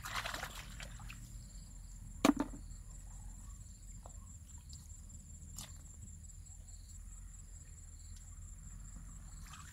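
Hands digging and groping in wet mud and shallow water at the edge of a bank: a brief splashy rustle at the start, then a sharp slap or knock about two seconds in, followed by a few faint clicks. Underneath is a steady high insect drone.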